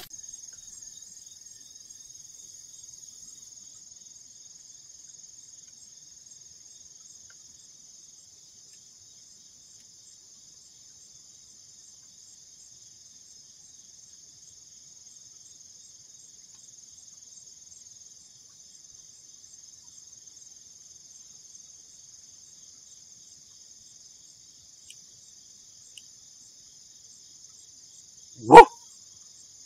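Crickets chirping steadily, with a single short, loud bark near the end.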